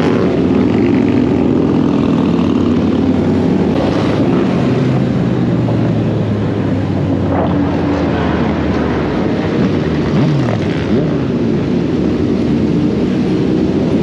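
Motorcycle engines running steadily while riding. One engine's pitch drops about ten seconds in.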